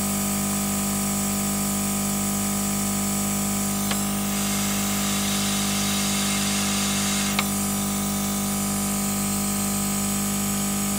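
A hot-air rework station blows steadily onto a circuit board, a constant fan hum with a hiss of air, heating the solder to fit a replacement surface-mount transistor. Two faint ticks come about four seconds in and again about seven and a half seconds in.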